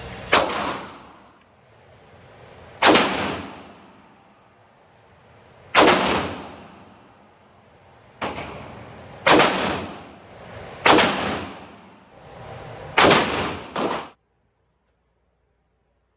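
Single gunshots from a handgun and an AR-15 rifle inside an indoor shooting range, eight shots at uneven intervals, each followed by a long echo off the range walls. The sound cuts off abruptly a couple of seconds before the end.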